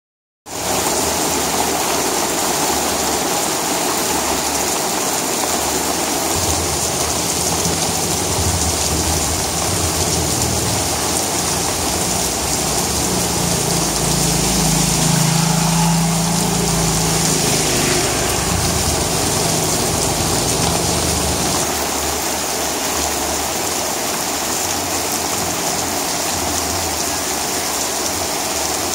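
Heavy rain falling steadily onto wet concrete paving, an even, continuous hiss of drops. A low rumble swells in under the rain through the middle stretch and fades out again.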